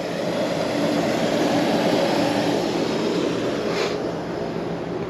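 A 1966 Ford Mustang's engine idling steadily, under a broad rushing noise that swells over the first couple of seconds and then fades. There is a short click near the end.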